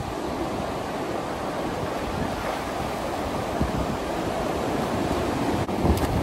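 Ocean surf breaking and washing up a sandy beach in a steady rush, with a couple of brief clicks near the end.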